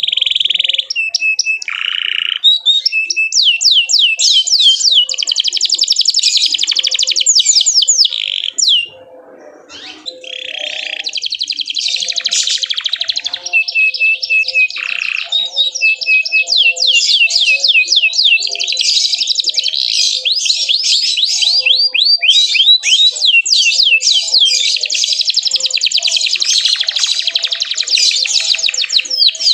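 Canary singing a long, fast song of rapid trills and repeated chirps, with a short break about nine seconds in.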